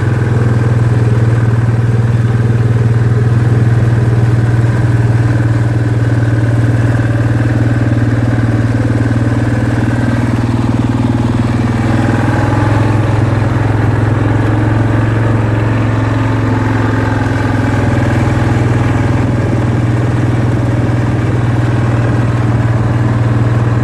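ATV engine running steadily at an even pitch, recorded from on board the machine.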